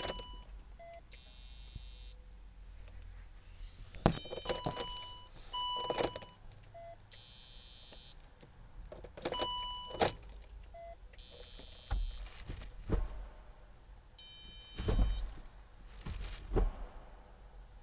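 Robotized manual gearbox being shifted with the ignition on and the engine off. Its electro-hydraulic actuator pump whirs three times for about a second each, the actuator clunks as gears engage, and the dashboard gives short single beeps.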